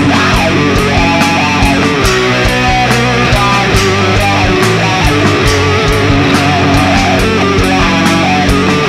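Thrash/death metal recording: loud distorted electric guitar riffing over steady, driving drums and cymbals.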